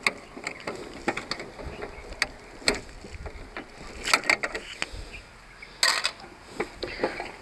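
Irregular plastic clicks and knocks from taking apart and handling the plastic seed drum of a push-type token seed planter, louder in short clusters about four and six seconds in.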